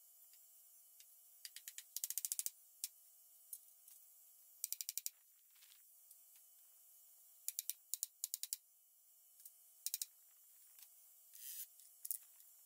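Short runs of rapid clicking, a few times, with a couple of brief scrapes, from tool work on the barn's wooden roof framing overhead.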